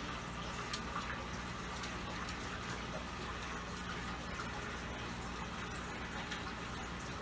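Aquarium water trickling and dripping as hands work in the tank and lift out a moss ball, over a steady low hum.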